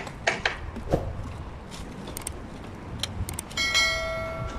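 A few sharp clicks and knocks, then a bright electronic chime that rings out and fades: a subscribe-button animation sound effect. A low steady rumble runs underneath.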